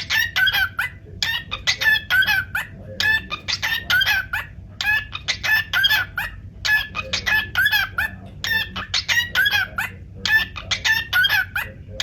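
Cockatiel singing: short phrases of quick, pitched chirping whistles, repeated one after another with a new phrase every second or two.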